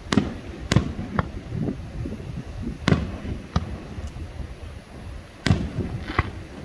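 Fireworks going off: a run of sharp bangs from aerial shells bursting, irregularly spaced, each trailing a short low rumble, with a pause of over a second before the last two.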